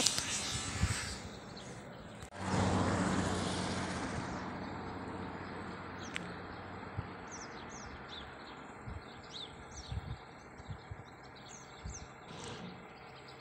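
Sibiryak SKD-5 combine harvester's engine running with a steady low hum that comes in suddenly a couple of seconds in and slowly fades away. Birds chirp over it in the second half.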